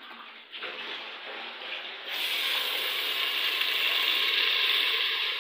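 Kitchen tap water running for about two seconds. Then a sudden, louder, steady sizzle of sliced onions and green chilies frying in hot oil in a pot.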